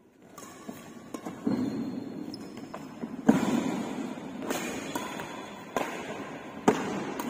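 Badminton rackets striking a shuttlecock in a doubles rally: about five sharp hits, roughly a second apart, the loudest about three seconds in and near the end. Each hit rings out with echo in a large hall, with the players' footsteps on the wooden court between hits.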